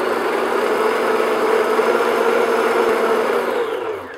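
Electric stand mixer running steadily, its paddle attachment beating cookie batter in a glass bowl. The motor winds down near the end.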